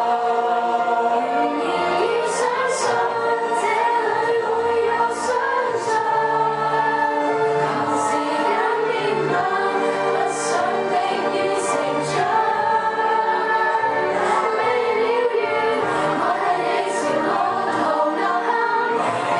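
A group of young women's voices singing a song together, the lead amplified through a microphone, several voices sounding at once.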